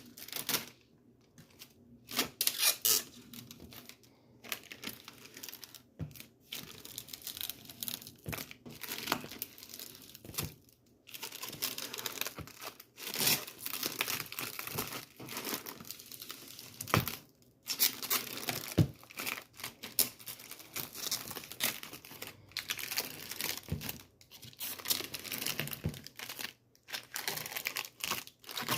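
Crinkling and crackling noises in irregular bursts, separated by short pauses.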